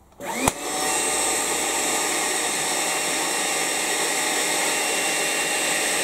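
Makita DCL180 18V cordless vacuum cleaner starting as its battery is pushed on with the trigger taped down. The motor spins up in a quick rising whine, a sharp click comes about half a second in, and the vacuum then runs steadily at full speed.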